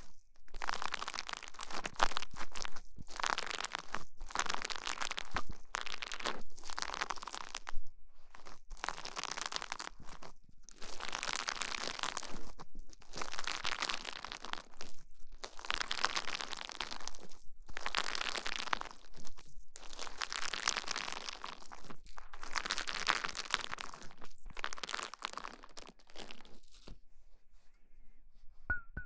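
Close-miked ASMR trigger sounds: a steady series of noisy rustling, crinkling swishes, each about a second long with short pauses between, stopping near the end.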